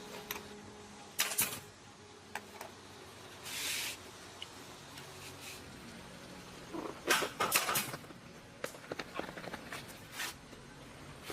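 Workshop handling sounds: scattered sharp clicks and knocks of tools and parts being picked up and set down. There is a short hiss about three and a half seconds in and a quick run of clatters about seven seconds in.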